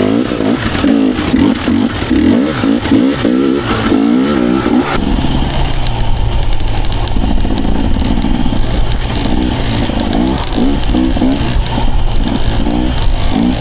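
Dirt bike engine revving up and down as the bike is ridden along a trail. About five seconds in, the sound settles into a steadier, deeper drone.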